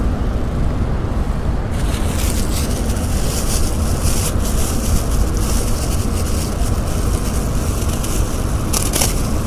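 Wind buffeting the microphone: a steady, heavy rumble, with a brighter hiss joining about two seconds in.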